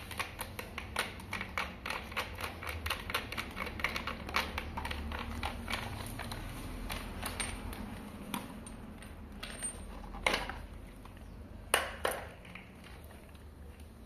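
Rapid light clicking and tapping, several clicks a second at first and then thinning out, with a few sharper knocks later on: a pedestal fan's motor and plastic column being handled and unscrewed by hand.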